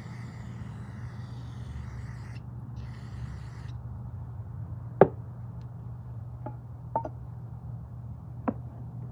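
Small carburetor parts being handled on a bench: a few sharp clicks and light knocks, the loudest about five seconds in, over a steady low hum. A faint hiss stops about four seconds in.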